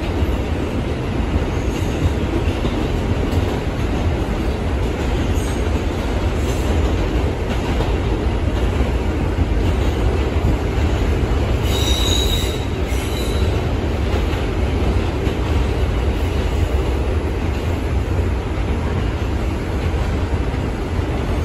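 R142 subway car running at speed, heard from inside the car: a steady rumble of wheels on rail and running gear. About twelve seconds in there is a brief high wheel squeal, with a fainter one a second later.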